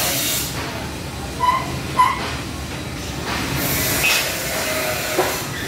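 Workshop background noise: a steady hiss, with two short high chirps about half a second apart near the middle.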